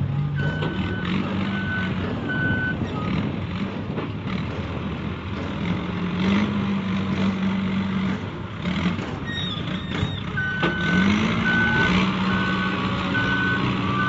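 XCMG WZ30-25 backhoe loader's Yuchai diesel engine running and revving up twice, with its reversing alarm beeping about once a second, first near the start and again through the last few seconds. A few short knocks are heard along with it.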